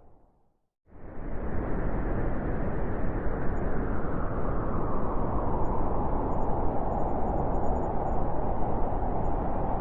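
Howling wind: a steady, rushing, rumbling noise. It starts the moment almost silent, then swells back in within the first second, as at the loop point of a wind recording.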